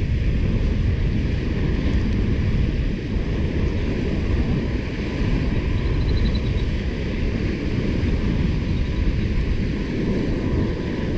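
Steady wind buffeting the microphone, a deep even rumble.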